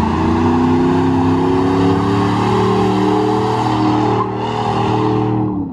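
Chevrolet Silverado pickup doing a burnout: its engine is held at high revs while the rear tyres spin and squeal on the pavement.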